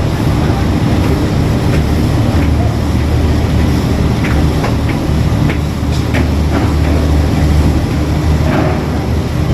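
Ro-ro ferry's engines running, a steady low rumble, with faint voices now and then.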